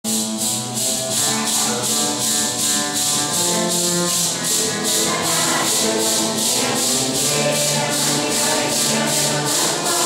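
A Santo Daime hymn: maracas shaken in a steady beat, about three strokes a second, under a held melody of sustained notes.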